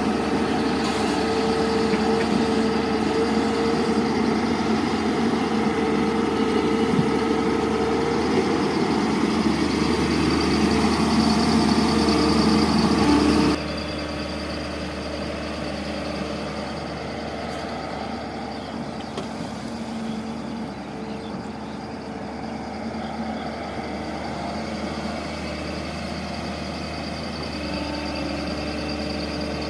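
Hydraulic excavator's diesel engine running steadily under work; about halfway through the sound drops suddenly to a quieter, steady running.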